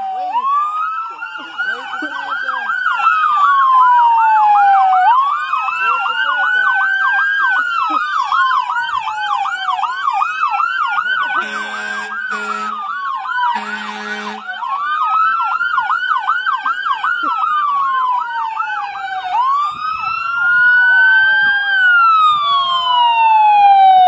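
Sirens of passing emergency vehicles: one wailing, rising and falling slowly about every five seconds, with another yelping rapidly over it. Two short horn blasts come about halfway through.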